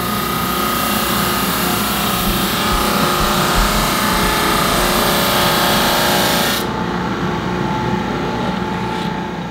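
Jet 18-36 drum sander running, its conveyor feeding a cherry board under the spinning sanding drum: a loud, steady machine noise with a harsh sanding hiss. About two-thirds of the way through the hiss drops off suddenly as the board clears the drum, leaving the motor and conveyor running.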